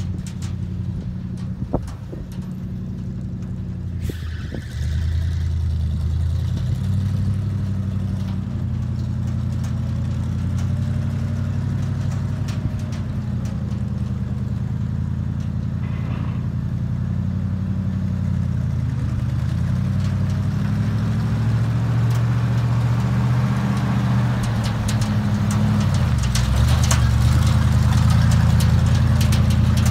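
1968 Chevrolet C60 grain truck's engine running as the truck drives slowly. It picks up about four seconds in and grows louder over the last few seconds as the truck draws up close.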